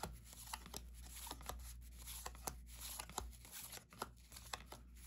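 Cardboard trading cards being thumbed one at a time off a stack and dropped onto a pile: faint, irregular ticks and slides, about three a second.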